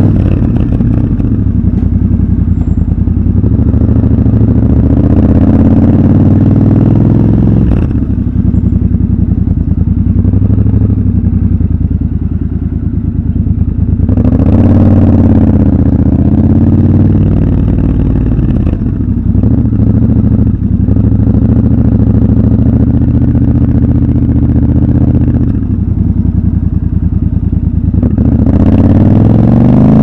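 Triumph Scrambler 1200 XC's 1200 cc parallel-twin engine running under way at low city speeds. Its pitch rises and falls as the throttle is opened around the middle, and rises again near the end.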